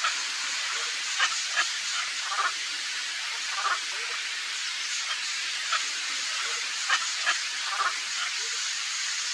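Steady rain falling, an even hiss, with short sharp sounds breaking through it several times.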